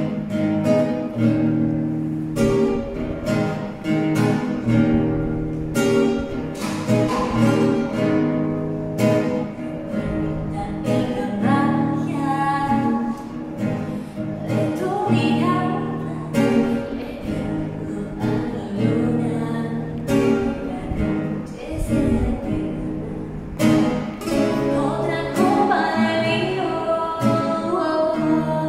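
A woman singing to her own strummed acoustic guitar, the guitar chords starting abruptly at the very beginning.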